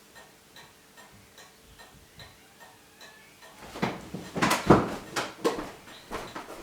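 Faint steady ticking, about two or three ticks a second, then a short cluster of knocks and rustling from objects being handled on a workbench, loudest about five seconds in.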